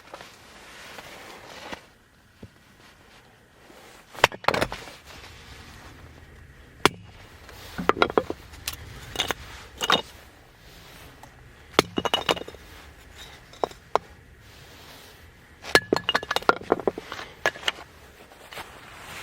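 Irregular clusters of sharp clinks and clatters of hard objects knocking together, some with a brief metallic ring, coming every few seconds with quieter gaps between.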